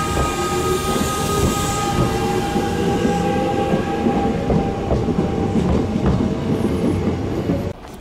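Kintetsu electric train running along the platform close by: a loud rumble of wheels with scattered clicks over the rail joints and a few steady whining tones. The sound cuts off suddenly near the end.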